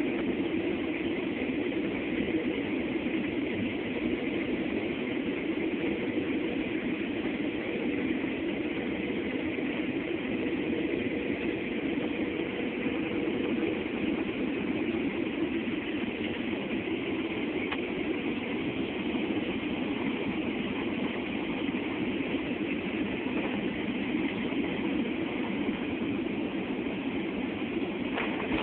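Steady jet-engine and rushing-air noise inside an airliner cabin on final approach, with a faint steady hum underneath.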